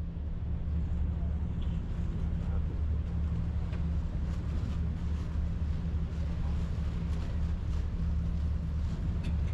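Passenger ferry's engine running steadily with a deep, even drone, under a rushing noise of wind on the microphone.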